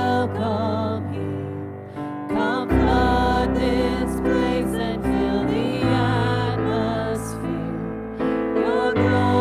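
Women's voices singing a slow worship song over sustained keyboard chords; a low bass line comes in about three seconds in and drops away near the end.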